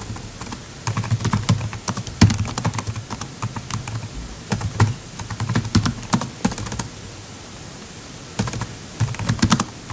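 Typing on a computer keyboard: quick runs of key clicks, with a pause of about a second and a half some seven seconds in before the typing resumes.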